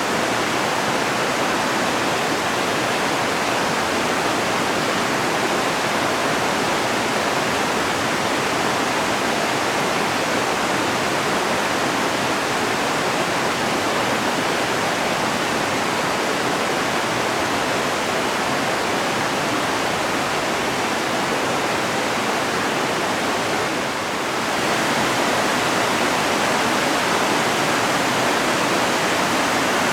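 Mountain river flowing over rocks, a steady, loud rushing of water that dips slightly about 24 seconds in.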